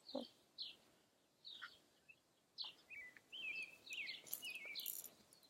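Faint chirping of small birds: short high calls repeating, with a quick warbling run of notes about three to five seconds in.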